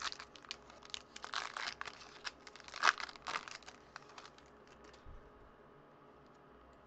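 Foil wrapper of a Topps Update baseball card pack crinkling and tearing as it is ripped open and peeled off the cards. A quick run of crackles, loudest about three seconds in, dying away after about four seconds.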